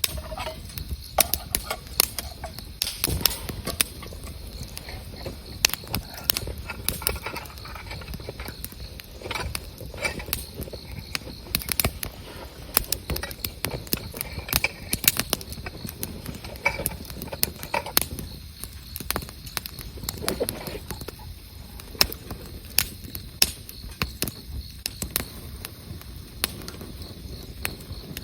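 Wood campfire crackling, with irregular sharp pops and snaps over a low steady noise of the burning.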